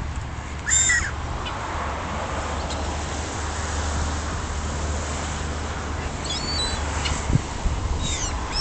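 Gulls calling: one loud, harsh squawk about a second in, then shorter sliding calls near the end, over a steady low rumble.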